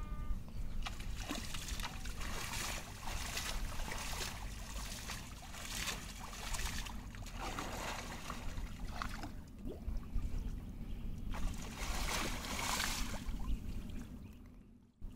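Water splashing and sloshing as a cast net is hauled in through shallow river water, in several bursts a second or so long over a steady low rumble. The splashing fades near the end.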